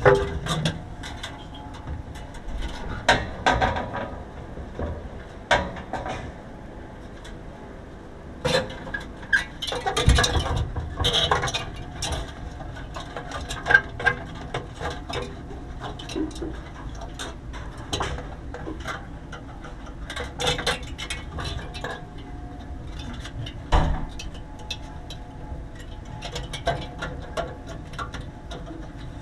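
Irregular clicks, knocks and scrapes of hands-on work, with sharper knocks about ten, fourteen and twenty-four seconds in.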